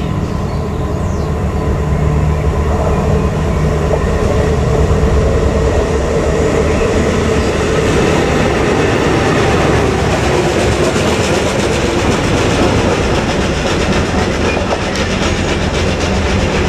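Colas Rail Unimat 09-4x4/4S Dynamic track tamping machine passing close by under its own diesel power. Its steady engine note is joined by the clattering of its wheels over the rails, with the clicks getting denser in the second half.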